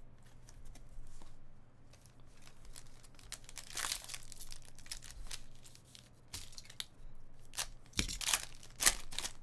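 A foil trading-card pack, a 2017-18 Panini Select basketball pack, being torn and crinkled open by hand: a run of short, sharp crackles and rips, loudest near the end.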